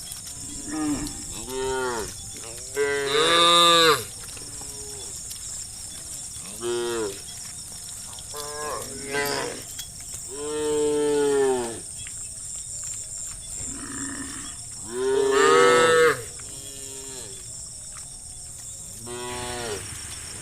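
Cows mooing one after another, about ten calls, some short and some long and drawn out, with the loudest about three seconds in and again about fifteen seconds in.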